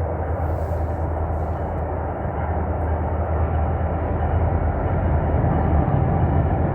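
A train passing nearby: a steady low rumble that slowly grows louder.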